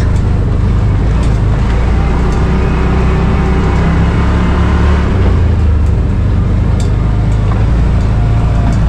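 Side-by-side UTV running along a dirt trail, its engine a loud, steady low drone whose pitch shifts a little as the speed changes.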